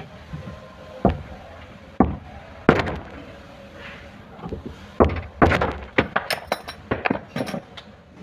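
Metal tools striking the sheet metal of a car door during body repair: single sharp knocks, then a quick irregular run of clinking blows near the end.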